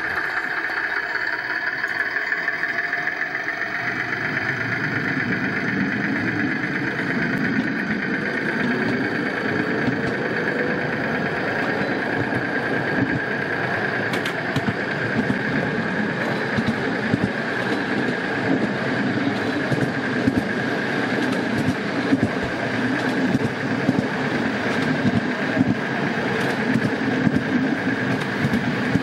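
Battery-electric miniature locomotive under way on a raised track: its motor hum and whine build over the first few seconds as it gets moving, then run steadily, with scattered clicks from the wheels on the rails.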